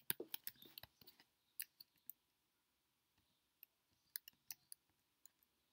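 Faint computer mouse clicks, scattered and irregular: a quick run in the first second, then a few more spread through the rest while anchor points are selected and dragged.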